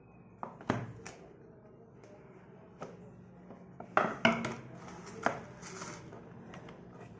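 Smartphone retail box and packaging being handled: sharp clicks and knocks, in one cluster about a second in and a louder one about four seconds in, with light rustling between.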